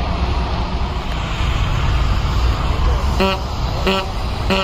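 Steady low rumble of a distant jet airliner's engines at taxi power, mixed with wind on the microphone. From about three seconds in, short horn beeps repeat roughly every two-thirds of a second.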